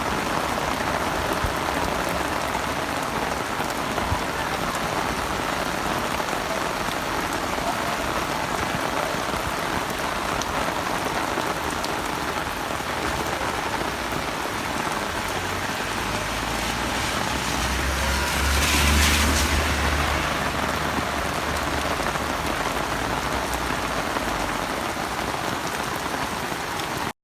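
Heavy rain falling steadily, an even hiss of downpour. About two-thirds of the way in, a low rumble and a louder rush swell up and fade over a few seconds.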